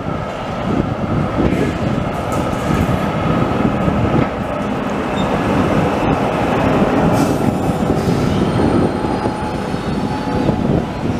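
Oslo tram running past at close range on street track: a steady rumble of steel wheels on the rails, with a faint high-pitched wheel squeal over the last few seconds.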